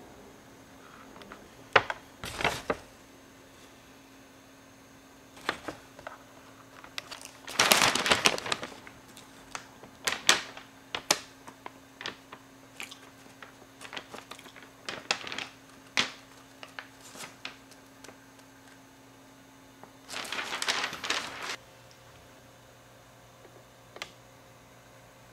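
Sheets of paper being handled and rustled: scattered sharp crackles and clicks, with two longer rustles, one about eight seconds in and one about twenty seconds in, over a faint steady hum.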